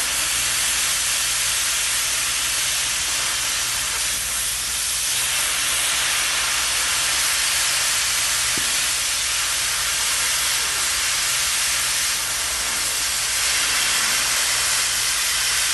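Oxy-acetylene cutting torch giving a loud, steady hiss from its gas jet and flame.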